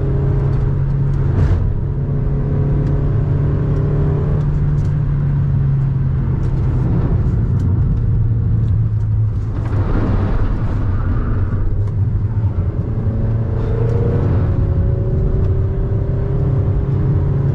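A VW Saveiro pickup's engine running under load with road noise, heard inside the cabin while the truck is driven fast through curves. The engine note rises and falls with the throttle, with a swell of louder noise about ten seconds in.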